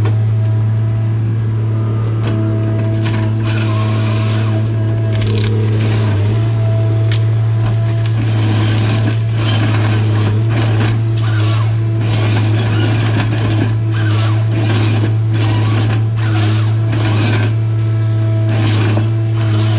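Tigercat 855C harvester running steadily, with a higher machine tone coming and going as the LogMax 7000 head feeds, delimbs and cuts hardwood stems. Frequent sharp cracks and knocks from the wood and head sound throughout, busiest in the second half.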